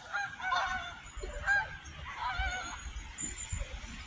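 A flock of geese honking, several calls in quick runs over the first two and a half seconds, then dying away.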